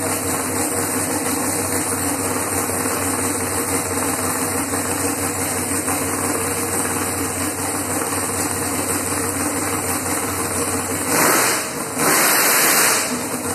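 Lifted square-body GM truck's engine running steadily on its first start-up. About 11 seconds in come two short, louder rushes of noise.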